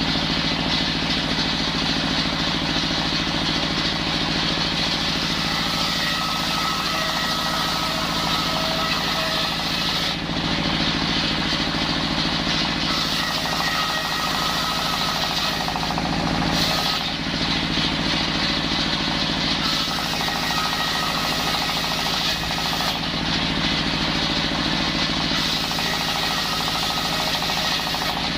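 Engine-driven circular saw running steadily while sawing timber into rafter stock. Its sound shifts every few seconds, with a faint whine coming and going.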